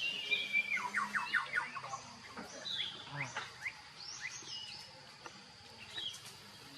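Birds chirping: a quick run of about six short falling chirps about a second in, then scattered single chirps.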